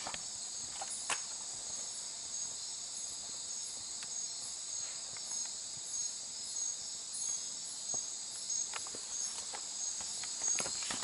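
Night chorus of crickets and other insects in tropical forest: a steady high buzzing trill with a short high chirp repeating about every three-quarters of a second. Scattered faint clicks run underneath.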